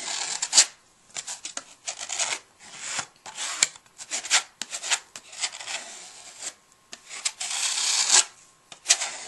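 A card scraping paint across a canvas in a series of short, irregular dry scraping strokes, with a longer drag near the end.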